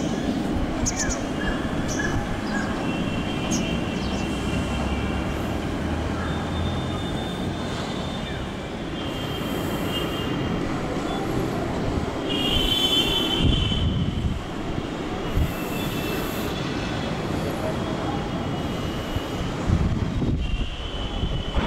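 Boeing 777's twin jet engines at takeoff power on the takeoff roll, heard from afar as a steady roar with a high whine that comes and goes.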